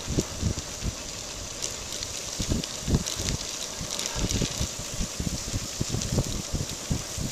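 Wind buffeting the microphone in irregular low gusts over a steady hiss of bicycle tyres rolling on a gravel trail, with a few faint clicks.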